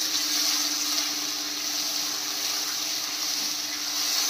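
Spiced oil and a little water sizzling steadily in a steel kadhai on a high gas flame as a spatula stirs it, an even hiss over a steady low hum.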